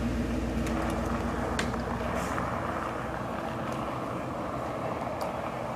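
Cadillac Escalade's V8 engine running as the SUV drives off. Its low hum fades after about two to three seconds, with a few faint clicks over it.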